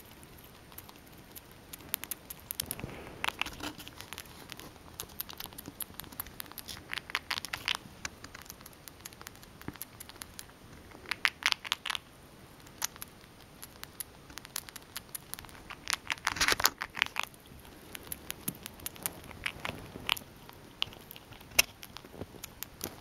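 Grey squirrel gnawing and crunching a crumbly treat held in its forepaws, in bursts of rapid crunching clicks every few seconds.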